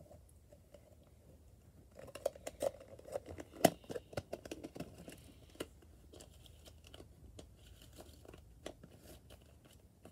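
Plastic or silicone fidget toys being handled: a quick run of crinkling clicks and crackles, with one sharp snap in the middle, then a few scattered light clicks.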